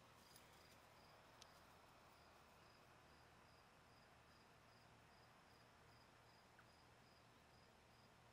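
Near silence, with crickets faintly chirping in an even high-pitched pulse, about two chirps a second.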